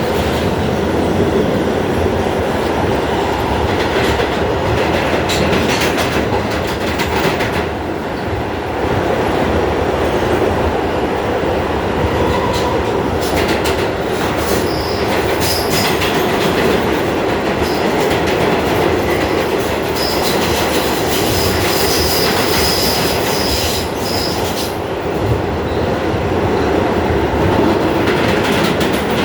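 New York City subway F train running along the express track, heard from aboard: a steady rumble with clacking over the rail joints. A high wheel squeal comes in briefly about halfway through and again for several seconds later on.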